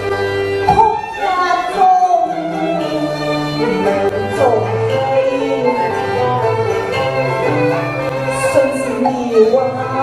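A woman singing into a microphone over a recorded accompaniment with violin-like bowed strings, her voice sliding and wavering between notes.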